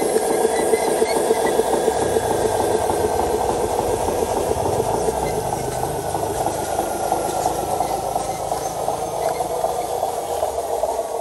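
Radio-controlled Hino 500 model truck crawling over rough ground, its drive running with a steady, dense buzzing rattle and a thin whine that slowly falls in pitch.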